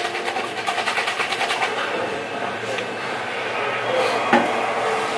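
Plastic shaker bottle of BCAA drink being shaken hard, a fast, even rattling rhythm that stops about two seconds in. A single sharp knock follows near the end.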